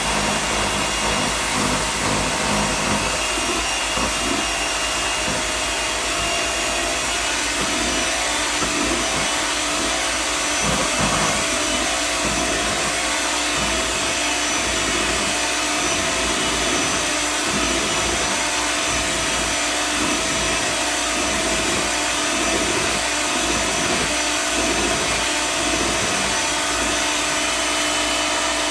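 Electric hand mixer running steadily, its twin beaters whirring as they beat cream cheese and butter in a bowl.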